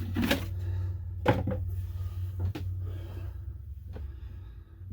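About five sharp knocks and clunks of things being handled, over a steady low hum.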